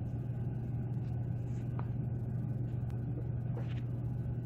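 Steady low hum, with a couple of faint light clicks.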